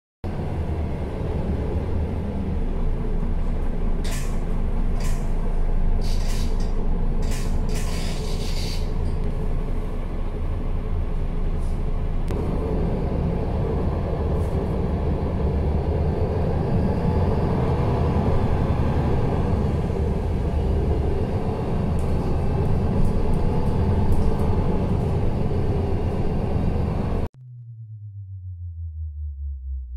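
Bus engine running, heard from inside the passenger cabin, with a few sharp clicks or rattles between about four and nine seconds in. The engine sound cuts off suddenly near the end.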